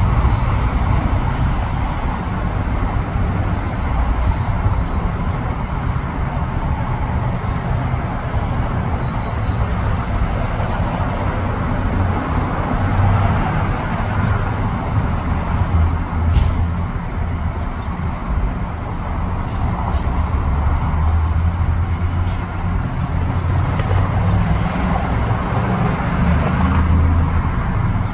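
Interstate traffic going by: a steady rush of tyre and engine noise from cars passing at highway speed.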